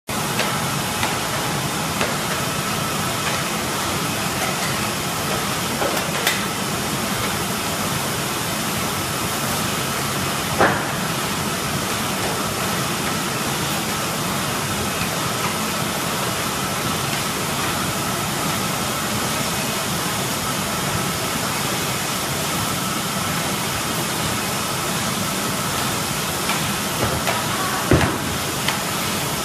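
Paper bag tube forming machine running steadily: a constant mechanical hiss with a faint steady whine, broken by a few sharp knocks, the loudest about ten seconds in and another near the end.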